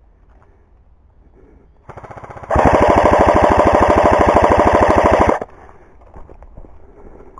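Airsoft gun firing on full auto: a quieter rapid stream of shots about two seconds in, then a loud, even rattle of shots for nearly three seconds that stops abruptly.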